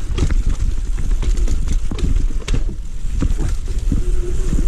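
Ragley Big Al hardtail mountain bike descending a steep, rough dirt trail: a steady low rumble with frequent irregular rattles and knocks as the rigid-rear bike hits bumps.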